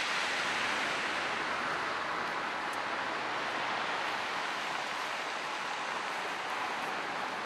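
Steady rushing noise of wind and sea surf, even and unbroken.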